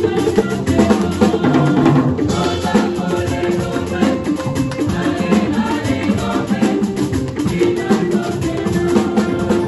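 Church choir singing an upbeat hymn, backed by a drum kit and an electric keyboard, with the drums keeping a busy, steady beat.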